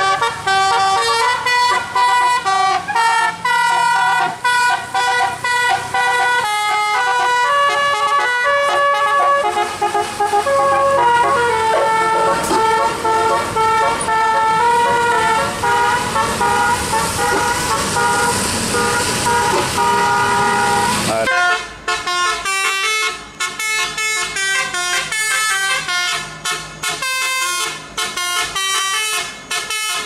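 Bus musical air horns (telolet) playing a tune in quick stepped notes. A steady hiss lies under the horns through the middle, and near the end the tune changes to a faster, choppier one.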